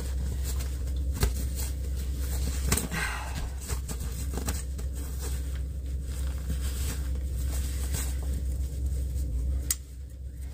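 Rustling and scattered clicks of a nylon puffer jacket and backpack being handled and pulled on, over a steady low rumble that drops away near the end.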